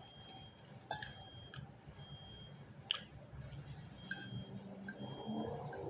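Quiet chewing and wet mouth sounds of someone eating a snack, with a few sharp clicks.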